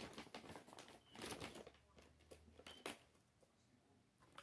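Near silence, with a few faint taps and rustles as food and the blender cup are handled.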